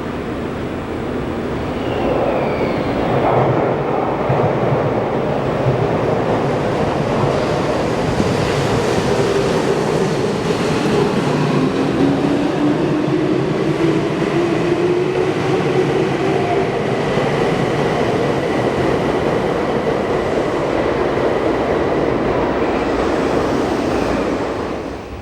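Tokyu electric commuter train running along a station platform, with wheel and rail noise. The motor whine rises steadily in pitch through the middle as the train speeds up, then the sound cuts off suddenly near the end.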